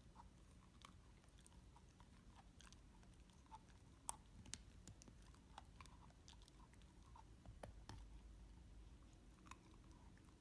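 Beagle puppy chewing a plastic whiffle ball: faint, irregular clicks and crackles of the hard plastic cracking under his teeth, with the sharpest snap about four seconds in.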